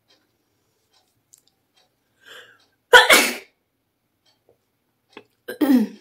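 A woman sneezing twice, set off by tickling her nose with a chili: a short breath in, then a loud sneeze about three seconds in, and a second, shorter sneeze near the end.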